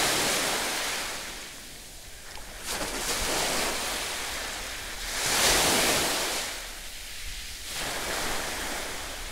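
Sea surf washing onto a beach, swelling and ebbing about four times, with the splashing of a swimmer in the shallows.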